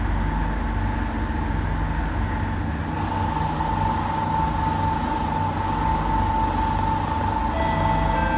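SMRT C151B train running at speed, heard from inside the carriage: a steady low rumble under a high, unbroken screech that grows louder about three seconds in. A few fainter whining tones join near the end.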